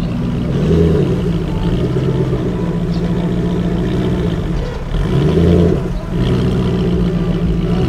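Aston Martin Vantage GT8's 4.7-litre V8 running at idle through its exhausts, given two short throttle blips, about a second in and about five seconds in, that lift the note and settle back.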